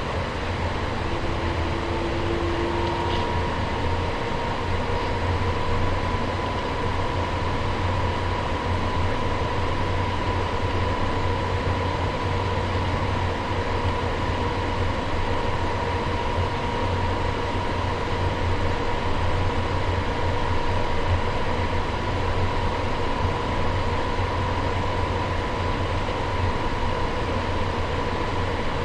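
Cabin noise of an Airbus A350-900 with its Rolls-Royce Trent XWB engines running: a steady low rumble with a steady engine whine that sets in about three seconds in.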